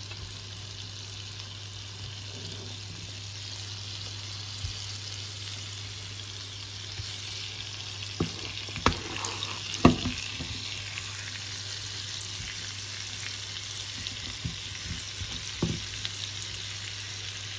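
Quince halves sizzling in melted butter and sugar in a frying pan as they caramelize. A few short knocks around eight to ten seconds in and again near the end come as the halves are shifted in the pan.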